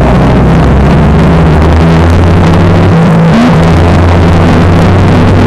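Motorcycle engine running steadily at road speed, loud, with heavy wind rush over the bike-mounted camera's microphone.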